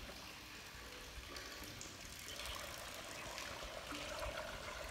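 Water pouring and trickling faintly and steadily, as water is drawn from the trough into buckets and cans.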